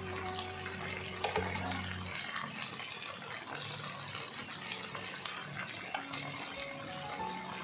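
Sauce-coated whole chicken sizzling in a hot double-sided grill pan while it is basted, with a few light taps and scrapes of the basting utensil on the meat and pan.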